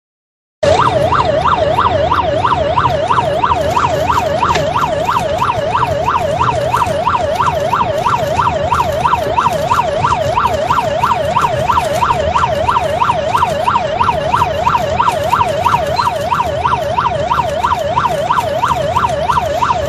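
Electronic siren in a fast yelp, its pitch sweeping up and down about three times a second, starting about half a second in, over a steady low rumble.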